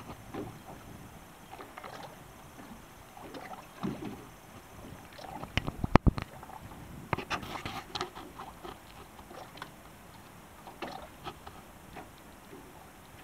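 Choppy seawater slapping and splashing close by, uneven, with scattered sharp knocks, the loudest about six seconds in.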